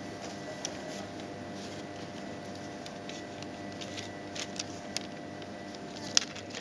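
A thin paper till receipt being handled and folded by hand, giving scattered soft crackles and clicks, with one sharper snap about six seconds in. A steady electrical hum runs underneath.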